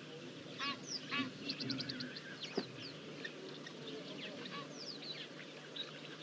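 Wild birds calling: scattered short chirps and downward-sliding whistles, with a quick run of short notes about a second and a half in.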